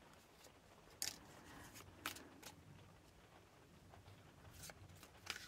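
Tarot cards being handled and laid onto a tabletop: a few faint, short, crisp clicks, about one second in, about two seconds in, and a few close together near the end.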